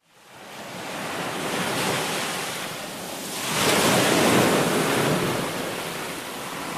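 Sea waves washing and surging, fading in from silence and swelling twice, the second swell louder, about four seconds in.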